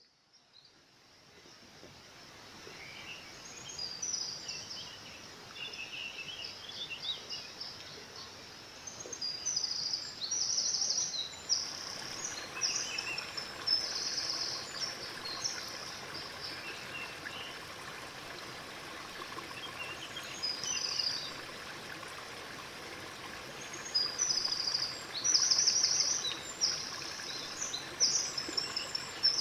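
Small birds singing in repeated high chirping phrases over the steady rush of a flowing creek. The sound fades in from silence over the first few seconds, and the water grows louder about twelve seconds in.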